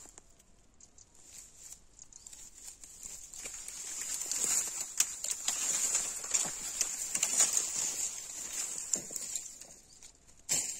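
Dry broken wild-pear branches rustling and crackling as they are pulled out of the brush and dragged away, with many small twig snaps. The sound builds a few seconds in and fades near the end.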